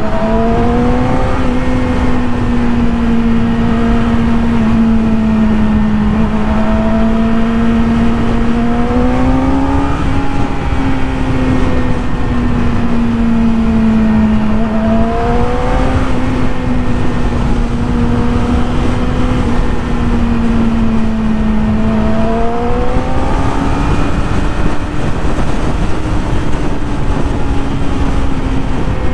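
Yamaha YZF-R6's 600cc inline-four engine running at steady high revs while riding, its note rising and easing back a little several times with the throttle. Wind rushes over the microphone underneath.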